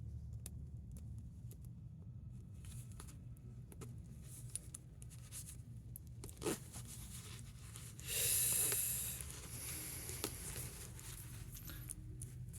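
A zipper being worked by hand: small clicks of handling the slider, then one pull of the zipper along its teeth lasting about a second, a little past the middle. A steady low hum runs underneath.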